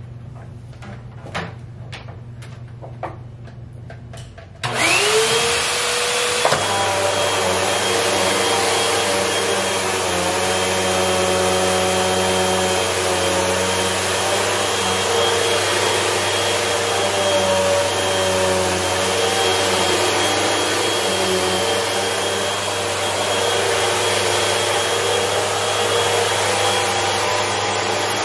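Upright vacuum cleaner switched on about five seconds in, its motor whine rising quickly to speed and then running steadily as it is pushed over a rug. Before it starts, a few light clicks and knocks.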